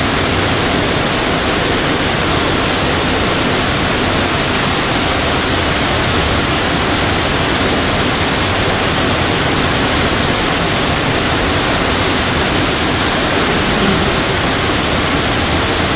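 A loud, steady, even hiss of noise with no pitch or rhythm, unchanging throughout.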